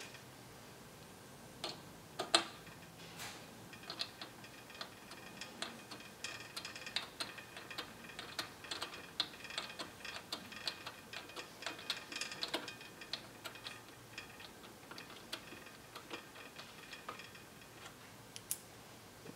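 Small metallic clicks and ticks of a hand tool working the pivot bolt of a BodyFloat Kinekt suspension seatpost. One loud click comes about two seconds in, then a dense run of light clicks with a faint metallic ring, which thins out near the end.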